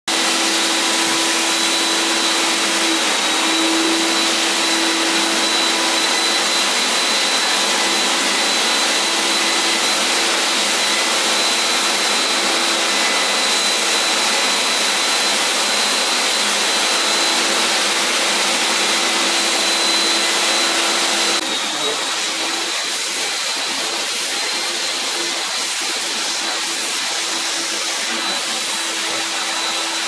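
A 3200 W three-motor 80-litre commercial wet-and-dry vacuum cleaner running steadily, with a hum and a high whine, while its floor nozzle sucks up water from a concrete floor. About two-thirds of the way through, the sound drops a little and changes.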